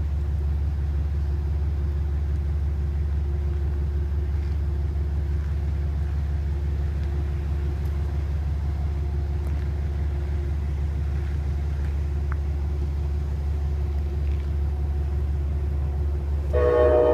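A steady low rumble, then about half a second before the end an approaching Metro-North train sounds its horn, a loud chord that starts abruptly.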